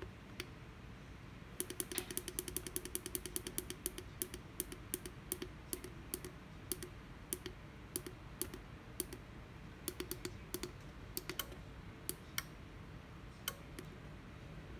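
Front-panel push buttons of an FT200 PID temperature controller clicking under a thumb. A fast run of about eight clicks a second starts about a second and a half in and lasts a couple of seconds, then single clicks follow irregularly, about two a second, thinning out near the end.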